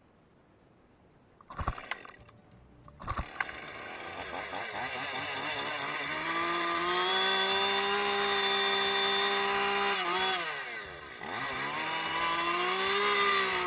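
Two-stroke chainsaw pull-started: two sharp pulls, catching on the second, then revving up and held at high throttle. About ten seconds in the revs drop sharply for a moment and then climb back up.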